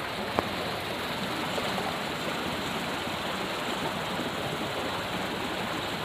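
Steady rushing of a fast-flowing, rocky stream, with a single short click about half a second in.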